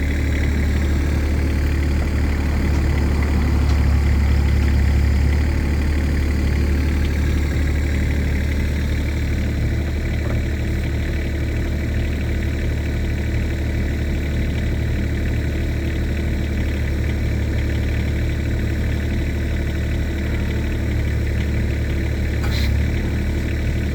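Kubota diesel engine of a New Holland E17c mini excavator running steadily, a little louder for a moment about four to five seconds in.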